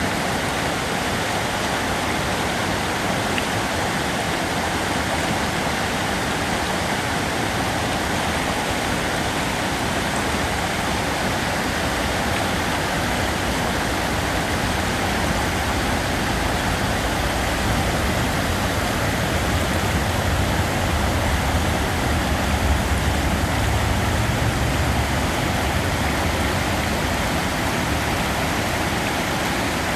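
River water flowing in a steady rushing wash. A low rumble swells and fades about two-thirds of the way through.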